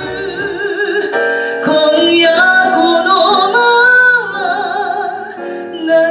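A woman singing held notes with vibrato into a microphone, accompanied by grand piano. The deeper band accompaniment drops out within the first second, leaving voice and piano.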